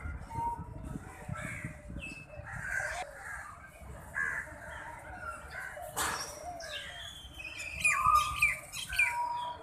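Several birds chirping and giving short calls, many overlapping, busiest and loudest near the end. A low rumble runs under the first few seconds, and there is one sharp click about six seconds in.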